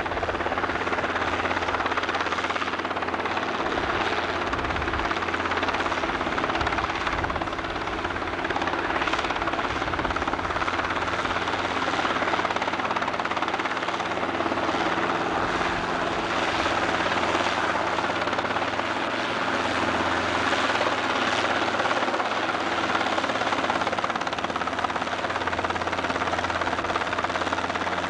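Low-flying light aircraft passing close, its engine running steadily and loud.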